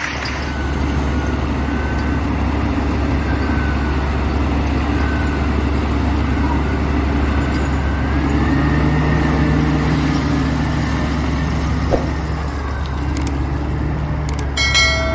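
A motor vehicle's engine running with a steady low rumble. A short, high-pitched squeal comes near the end.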